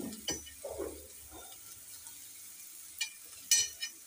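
Chopped onions sizzling softly in hot oil on a flat iron tawa, with a few short sharp knocks about three seconds in.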